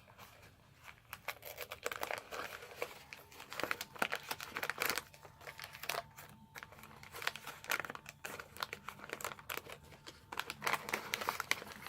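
Wax paper wrappers of 1981 Donruss baseball card packs crinkling and tearing as packs are opened by hand, with the cards rustling as they are handled. The sound is an irregular run of sharp crackles and rustles.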